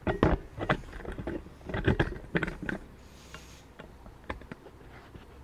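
Irregular knocks and rattles as the old Victa mower is jolted by hand, a few loud clattering knocks in the first three seconds, then only faint ticks. The engine does not run.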